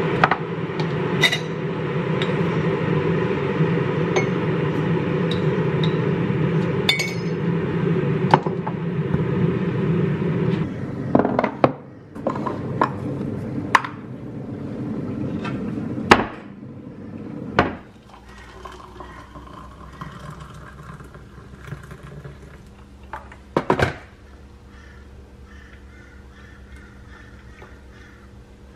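Glass jars, lids and a metal spoon clinking and knocking against a ceramic mug and the countertop during coffee-making, over a steady rushing hum that weakens about halfway through and is gone by about two-thirds of the way in.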